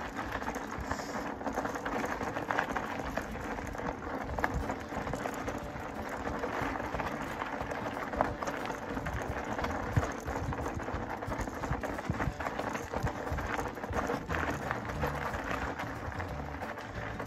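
Fat-bike tyres rolling over a bumpy gravel and sand road: a steady gritty noise dotted with many small clicks and knocks from stones under the tyres and the bike shaking.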